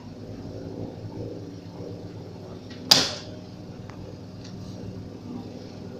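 Steady low boat-engine hum, with one sharp bang about halfway through.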